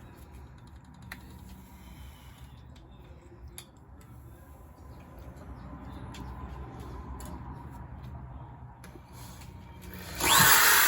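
Faint clicks and handling over low background noise, then about ten seconds in a DeWalt power drill suddenly starts up, whirring loudly.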